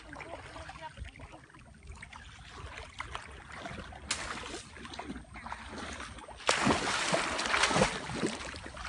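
Water sloshing and splashing, with a sharp knock about four seconds in, and the splashing getting louder from about six and a half seconds in.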